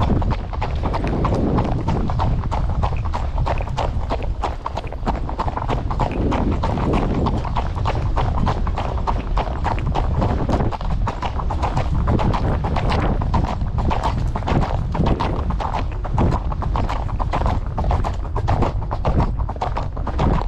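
A horse's hooves clip-clopping, a steady run of footfalls, over a constant low rumble.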